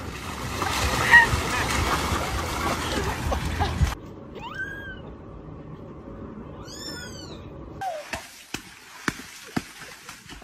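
A few seconds of loud, noisy rustling. Then two short animal calls, each rising then falling in pitch, about two seconds apart. Then a run of light clicks or taps.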